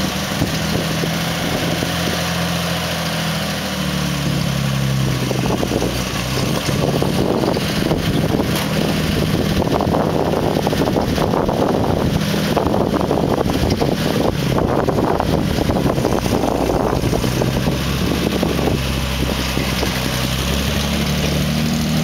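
A 1950s Chevrolet pickup truck's engine running at idle and low speed as the truck backs out of a driveway and pulls onto the street, its pitch shifting early on and again near the end. Wind noise on the microphone rises over it through the middle.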